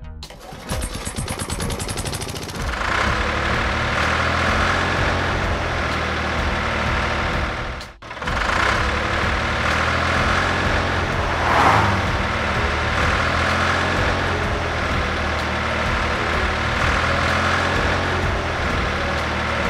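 Engine of a construction machine running steadily, likely a trencher sound effect. It cuts out briefly about eight seconds in and swells for a moment a few seconds later.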